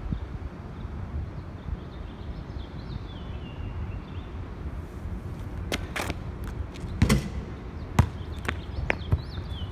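Basketball bouncing on a concrete court: a few sharp bounces in the second half, the loudest with a dull thud, then bounces coming quicker and quicker as the ball settles.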